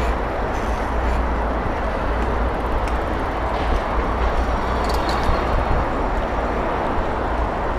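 Steady wind rush on the microphone and road noise from riding a bicycle along a town street, with street traffic in the background.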